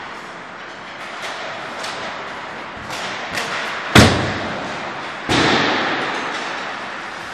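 Ice hockey pucks and sticks in shooting practice: a few light clacks, then two loud sharp bangs about four and five seconds in. Each bang echoes through the rink.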